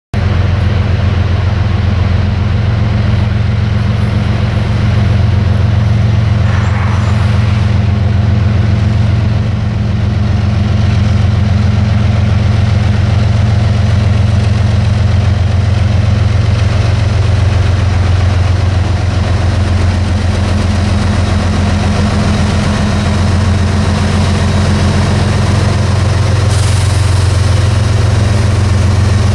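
Diesel engines of CSX road locomotives running with a steady low drone as a slow coal train approaches. A higher hiss joins near the end as the lead units come past.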